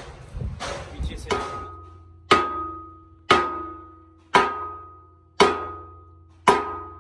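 Hammer striking steel: a few lighter knocks, then six hard clanging blows about a second apart, each leaving a ringing tone that fades before the next.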